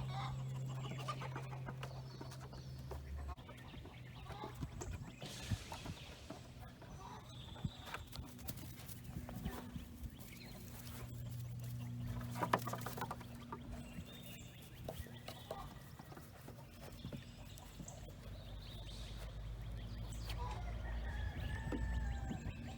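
Chickens clucking on and off, with a few sharp knocks and rustling over a steady low hum.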